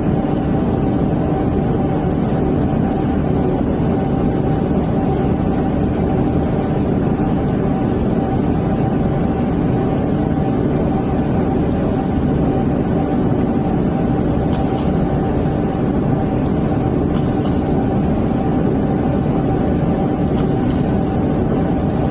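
Steady mechanical hum with two constant tones, unchanging throughout, with a few faint short high ticks in the second half.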